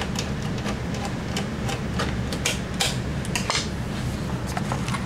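Scattered light clicks and taps from handling at the computer case, over a steady low hum.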